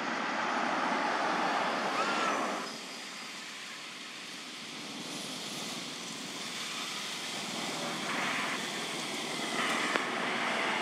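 Steady outdoor background noise with no clear single source. It drops in level abruptly about two and a half seconds in and builds back up near the end.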